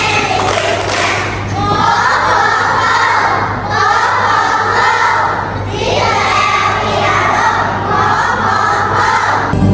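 Many young children's voices singing together in a hall, in phrases of about two seconds with short breaks between them. Just before the end a louder recorded music track comes in over the PA.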